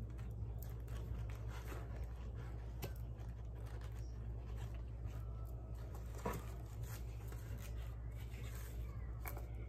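Small rustles and clicks of hands opening a little sachet and handling what is inside, with one sharper click about six seconds in, over a steady low hum.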